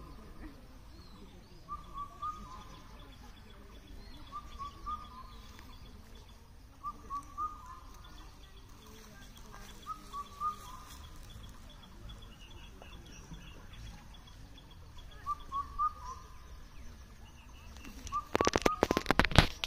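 A bird repeating a short call of three or four quick notes about every two seconds, with fainter chirping higher up. Near the end comes a burst of loud crackling clicks.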